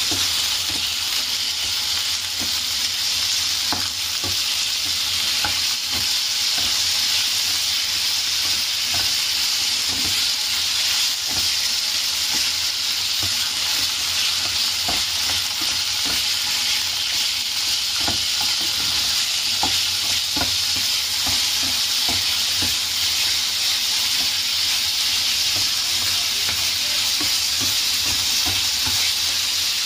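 Chicken breast pieces sizzling in hot oil in a frying pan, a steady hiss. A spatula stirs and turns them throughout, with frequent short clicks and scrapes against the pan.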